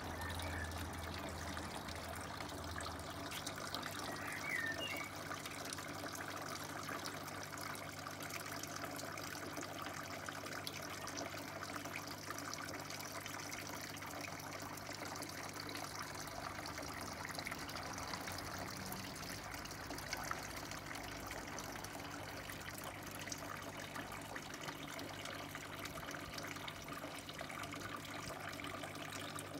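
Garden water feature trickling steadily: water pouring from a cascade of jugs into a wooden half-barrel.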